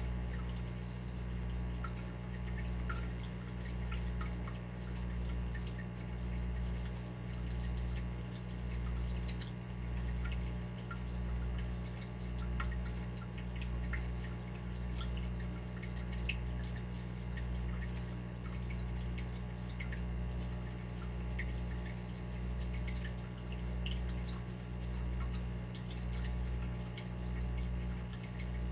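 Water dripping in small, irregular drips over a steady low hum that pulses slowly and evenly.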